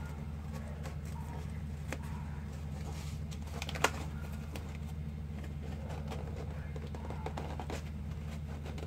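Cardboard being handled and pressed into place, with small scattered clicks and crinkles and one sharp tap about four seconds in, over a steady low hum.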